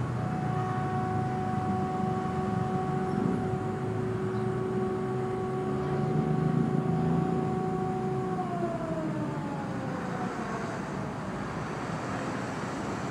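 A steady mechanical whine over a low rumble, holding one pitch and then sliding down in pitch about two-thirds of the way through, like a motor or vehicle winding down.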